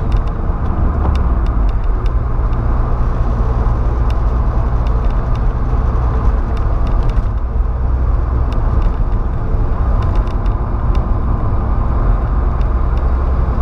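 Steady in-cab road and engine noise from a Volkswagen Saveiro pickup cruising at highway speed: a constant low rumble, with faint scattered clicks.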